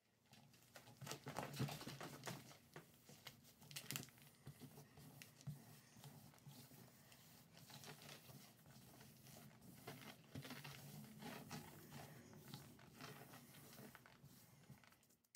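A hand rubbing and sweeping corn starch powder across a carved linoleum block: faint rustling and scuffing with scattered small clicks, loudest in the first few seconds.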